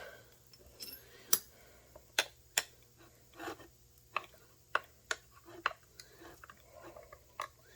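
Irregular sharp metallic clicks and clinks, about a dozen, as a saw chain and bar are worked onto a chainsaw and tensioned by hand.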